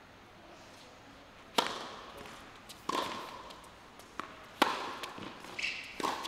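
Tennis ball struck by rackets in a rally, starting with the serve: four sharp hits about a second and a half apart, alternating between a louder near hit and a fainter far one, each with a short ringing tail.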